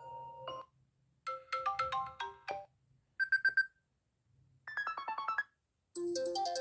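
A string of short iPhone ringtone and alert-tone clips played one after another with brief gaps between them. A held chord ends, then come a quick run of plucked notes, four rapid high beeps and a fast run of notes, and a fuller ringtone starts near the end.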